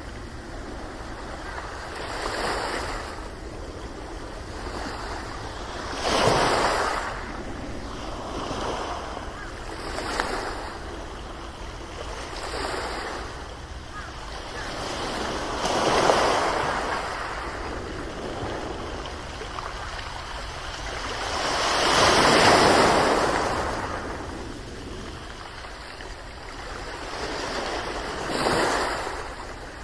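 Ocean waves breaking and washing onto a shore: a steady rush of surf that swells and falls back every few seconds, with the largest wave about three quarters of the way through.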